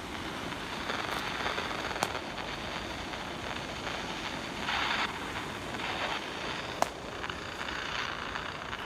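Steady rush of a flooded creek pouring over a low dam, with footsteps crunching on dry leaf litter now and then and two sharp clicks, about two and seven seconds in.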